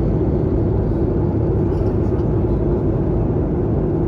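Steady airliner cabin noise heard from a seat: a constant low rumble of engines and airflow with a steady hum.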